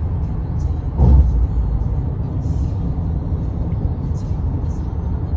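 Tyre-on-pavement road noise heard inside a car's cabin at highway speed: a steady low rumble, with one louder thump about a second in.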